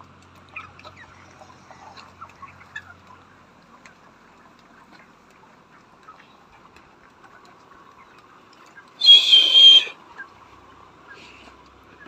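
Broiler chickens in a poultry shed chirping and clucking faintly. About nine seconds in comes one loud, harsh burst lasting about a second, much louder than the rest.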